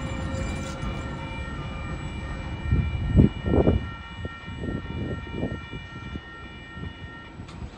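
Level crossing warning alarm ringing with a steady high tone, over the fading low rumble of a departing freight train. About halfway through there are loud low buffets of wind on the microphone. Near the end the alarm cuts off suddenly as the crossing clears.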